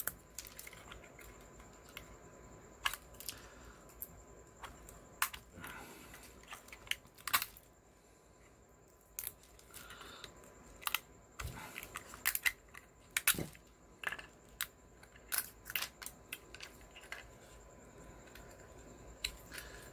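Single-wall silk PLA print being pulled apart by hand along its layer lines: irregular small, sharp clicks and snaps of thin plastic, many of them scattered through, as layers separate.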